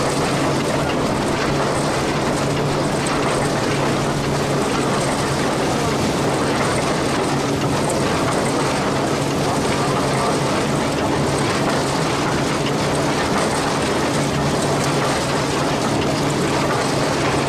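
Vintage Jones baler running while being fed straw: a continuous mechanical clatter over a steady low hum from the belt-driven machinery.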